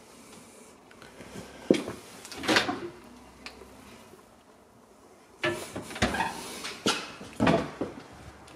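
Built-in stainless-steel oven door being opened and shut: a sharp click and a rattling clunk about two seconds in, then a run of knocks and clunks from about five and a half seconds on.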